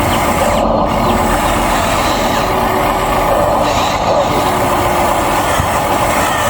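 Steady machine noise that runs on without a break, like a heavy vehicle engine running.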